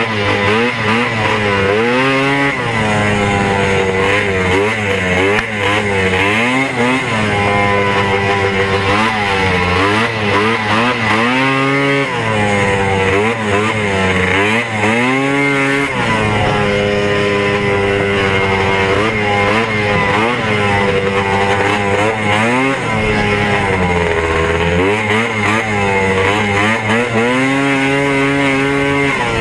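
Vintage Ski-Doo Olympique's 277 free-air single-cylinder two-stroke engine at racing speed, heard from on the sled. Its pitch keeps climbing and dropping as it is throttled up and down, every few seconds.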